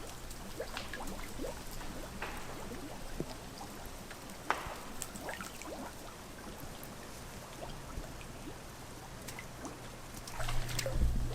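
Quiet outdoor ambience with scattered light ticks and clicks over a faint steady low hum, growing louder about ten and a half seconds in.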